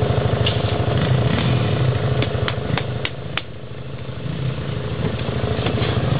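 All-terrain three-wheeler (ATC) engine running at low speed off-road, steady and pulsing. A quick run of sharp clicks comes between about two and three and a half seconds in, then the engine drops off briefly and picks up again.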